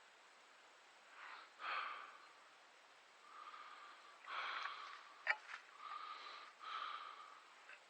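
A man breathing hard through his nose and mouth while digging, in a series of short, faint breaths, with a couple of sharp clicks about five seconds in.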